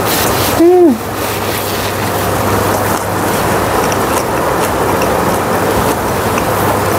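Steady sizzling from stir-fried webfoot octopus and pork belly in a hot grill pan, still sizzling on residual heat with the burner off. About a second in, a short hummed 'mm' rises and falls in pitch.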